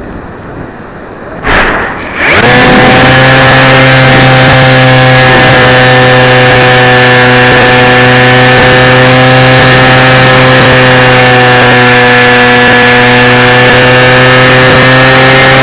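Zagi flying-wing RC plane's propeller motor at full power, heard through the onboard camera mounted close to it: a loud, steady drone with many evenly spaced tones. It starts suddenly a couple of seconds in, right after a brief loud rush of noise, and keeps an almost constant pitch.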